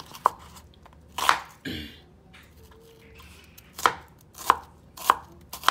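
Chef's knife slicing an onion into thin strips, each cut ending in a sharp knock on the wooden cutting board; about six cuts, with a pause of a couple of seconds in the middle.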